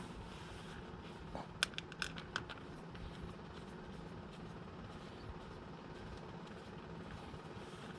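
Light metallic clicks and clinks of hand tools on small metal parts, a quick cluster of them about two seconds in, over a faint steady hum.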